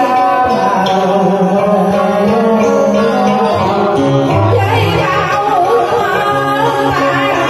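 Live karaoke singing of a Vietnamese tân cổ duet over a recorded instrumental backing track.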